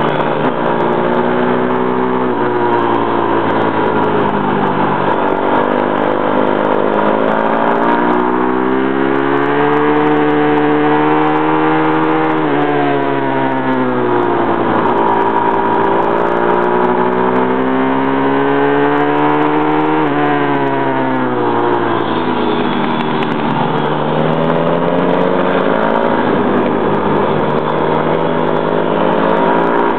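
Pit bike engine heard on board at racing speed, revving up and down repeatedly: the pitch climbs steadily under acceleration and drops off suddenly several times, over a rush of wind noise.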